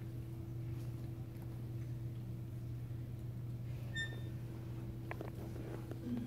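Steady low room hum, with a few faint clicks and a brief high tone about four seconds in.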